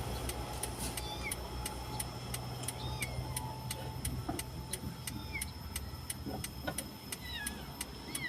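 Steady ticking about three times a second over the low, steady hum of a car's idling engine. A few faint, short, high falling chirps come through now and then.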